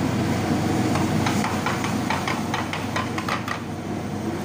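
Steady rushing drone of a gas burner flame under a pan of simmering curry, with a run of short crackles and pops from the bubbling gravy in the middle.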